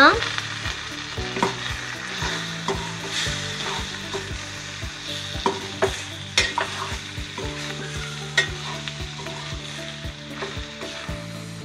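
Raw chicken pieces sizzling in hot oil with fried onions in a steel kadai, stirred with a steel ladle that scrapes and clinks against the pan now and then.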